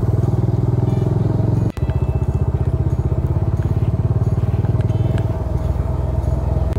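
A car driving, with a loud engine and road noise as a heavy low rumble that pulses quickly and evenly. The sound cuts out for an instant just under two seconds in.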